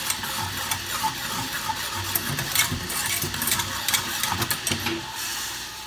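Wire whisk rattling and clicking rapidly against a metal saucepan as matcha syrup is whisked over the heat. The clicking stops about five seconds in.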